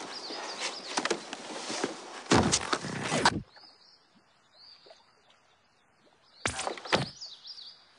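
Rough, noisy handheld-camera sound with several loud knocks, cutting off suddenly into a quiet stretch with faint bird chirps. Near the end this is broken by two loud, sharp crackling bursts about half a second apart.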